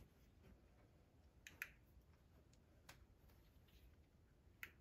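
Faint sharp clicks as rubber spark plug lead boots are pushed and snapped onto the spark plugs: two close together about a second and a half in, another near three seconds, and one near the end, over near silence.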